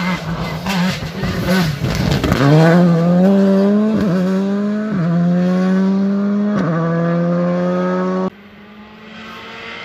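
Rally car engine accelerating hard through the gears: after a rough, crackling stretch it climbs steadily in pitch, dropping sharply at each of three upshifts. The sound cuts off suddenly near the end.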